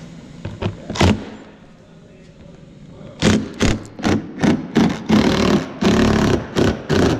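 Cordless impact wrench hammering on a bolt under the wheel well. It starts about three seconds in with short trigger bursts, about three a second, then runs in longer bursts of under a second each. A single click comes about a second in.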